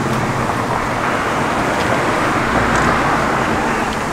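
Street traffic: a steady rush of vehicles driving past, with a low engine drone coming in about halfway through.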